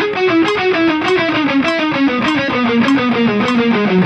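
Electric guitar through overdrive, playing a fast, even run of single notes that steps down in pitch, picked about six to seven notes a second. A metronome clicks along at 100 beats per minute.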